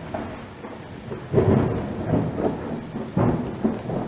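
Thunderstorm sound effect: steady rain with rolls of thunder swelling about a second in and again near the end. It cuts off suddenly.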